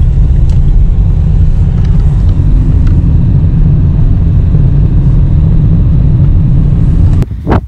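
Steady low rumble of a moving car heard from inside the cabin, the engine and road noise of a Dacia at driving speed. It cuts off abruptly near the end.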